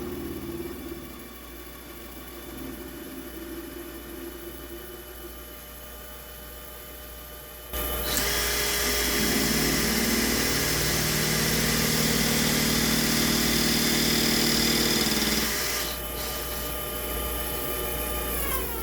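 Mini lathe motor running with a steady whine. About eight seconds in, the tool bites into the metal boring-bar holder, adding a loud, harsh cutting hiss that throws sparks. The cut eases after several seconds, and near the end the motor winds down with a falling pitch.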